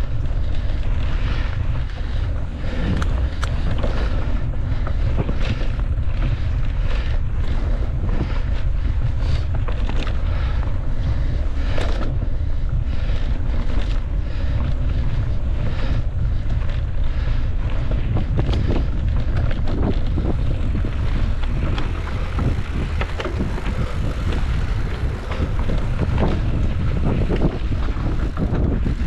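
Wind buffeting the microphone with a steady low rumble, over a dense, irregular rattle of knocks and clicks from a mountain bike riding over rough trail.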